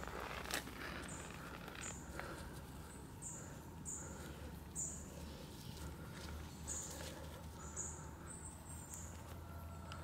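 Small birds chirping in the background: short, high chirps about once a second over a low, steady hum.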